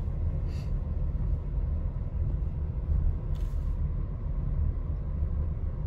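Steady low rumble inside a Ford SUV's cabin as it rolls slowly: engine and tyre noise.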